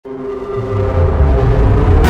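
Dark, ominous intro music: a low rumble swelling in beneath sustained held tones.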